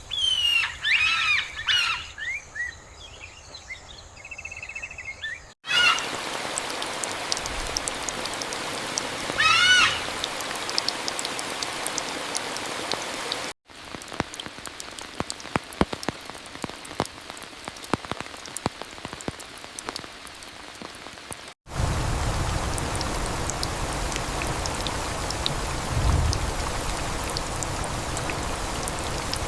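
Rain falling steadily, with scattered drips and short bird calls, in several clips joined by abrupt cuts. Bird calls lead at the start; rain takes over after the first cut.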